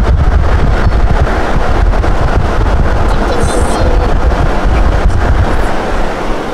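Wind buffeting a phone microphone held at a moving car's window, over the low rumble of the car driving; it dies down near the end.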